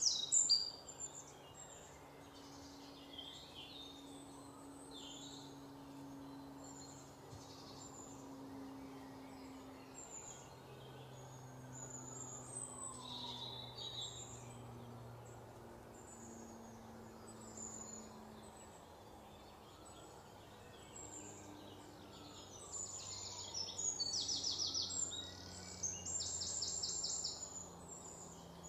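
Songbirds chirping, with faster, louder trills late on, over a faint steady low hum.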